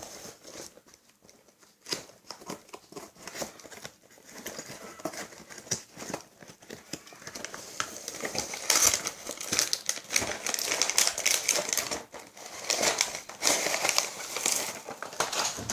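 Cardboard kit box being opened and its lid lifted off, then a thin plastic cover over the kit's tray crinkling as it is handled, busier and louder from about eight seconds in.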